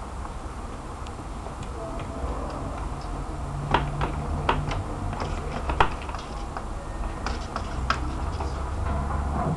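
Kittens wrestling on a wooden parquet floor: irregular light clicks and taps of claws, paws and jostled cables against the wood, busiest in the middle, over a low rumble.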